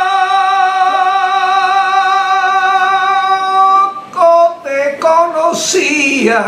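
A man singing flamenco, a zambra, without accompaniment: one long note held with a wavering vibrato for about four seconds, then a few short ornamented syllables and another long held note near the end.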